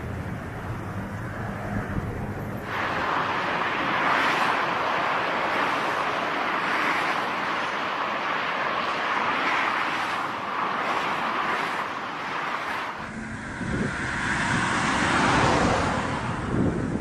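Airliner jet engine noise mixed with wind blowing on the microphone, swelling in level about three seconds in; about two-thirds of the way through it switches abruptly to a differently recorded stretch of the same kind of engine-and-wind noise.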